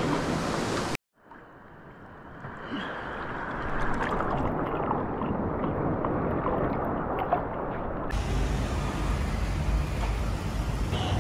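Sea water lapping and sloshing around a camera held at the surface, heard muffled, swelling in over the first few seconds after a brief burst of surf and wind cuts off. About eight seconds in it gives way to open-air street ambience with a low steady hum.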